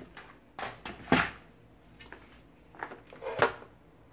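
Several sharp knocks and clatters of a satellite receiver's slotted metal top cover being handled and lifted to close up the case, the loudest about a second in and again near three and a half seconds.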